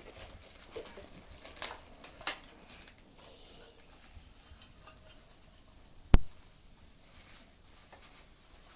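Handling of a plastic bag and a clear acrylic box: a few small clicks and crinkles in the first couple of seconds, then one sharp, loud click about six seconds in.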